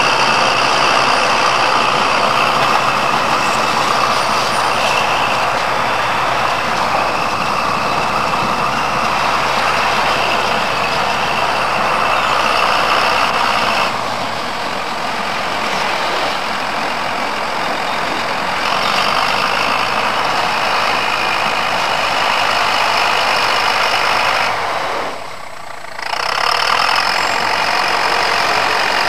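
Engine of a tracked over-snow tractor running steadily. The sound shifts about halfway through and dips out briefly near the end before resuming.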